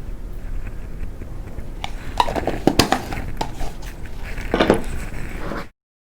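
Kitchen utensils clinking and knocking against a pot or bowl in a cluster of sharp taps, while curry is being added to the fish; the sound stops abruptly near the end.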